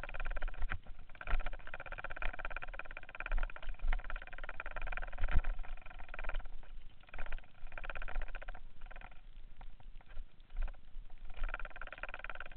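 Mountain bike running fast down a dirt downhill trail: a high steady whir from the bike comes and goes, over low rumble and thumps as it hits bumps.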